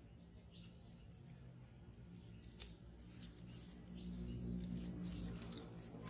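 Leaves and twigs rustling and crackling as a baby monkey clambers in a leafy tree: a run of short, sharp ticks, with a few faint high chirps. A low rumble grows louder about four seconds in.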